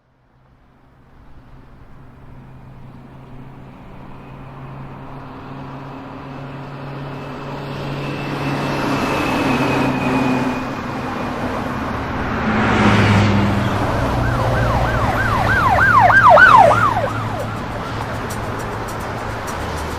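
Sound-effects intro that fades in from silence and slowly swells: a growing hiss over steady low drones. Near the end a fast warbling siren-like wail rises and falls about three times a second, then the swell eases off.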